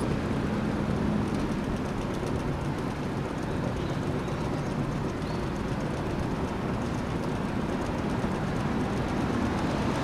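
Outdoor unit of an LG system air conditioner running with its condenser fan turning: a steady rumble and rush of air that holds even.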